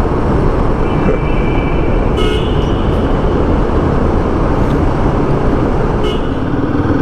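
Royal Enfield Himalayan 450's single-cylinder engine running steadily at about 60 km/h inside a road tunnel, with road and wind noise. Short horn toots sound about two seconds in and again near the end.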